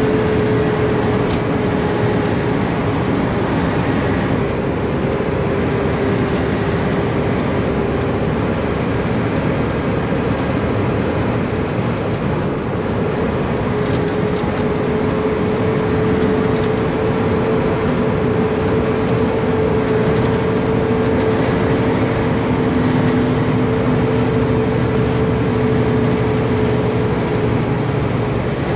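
Cab noise of a Mack garbage truck driving on the road: a steady engine and road drone with one hum that holds nearly level throughout.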